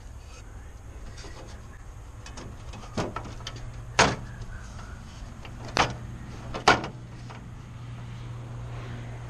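Several sharp knocks, the loudest about four seconds in and again near seven seconds, as an aluminium step ladder is handled against the pontoon boat, over a steady low hum.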